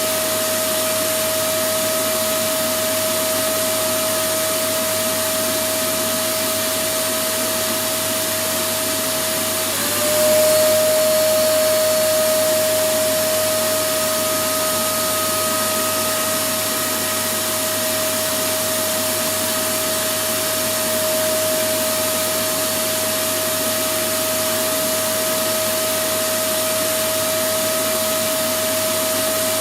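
Electric vacuum cleaner running steadily: a constant rush of air under a high motor whine. About ten seconds in, the whine dips slightly in pitch and the sound briefly grows a little louder, then settles back.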